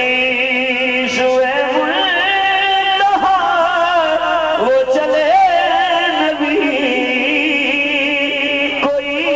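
A man singing a naat into a microphone, holding long melismatic notes with a wavering vibrato and gliding between them.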